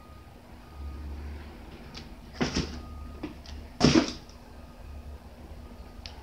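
Cats landing and scrambling on a hardwood floor while jumping at a cat toy: two loud thumps about two and a half and four seconds in, with a few lighter taps between.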